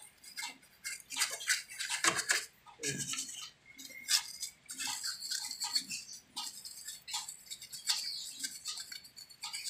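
A stiff brush scrubbing the finned cylinder head of a small motorcycle engine with degreaser: a run of quick, irregular scratchy strokes against the metal.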